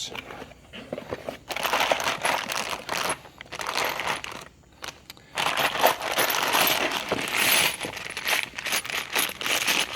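Cardboard boxes and tool packaging being handled and opened, with metal tools clinking and rattling. The handling comes in two busy stretches with a brief lull between them.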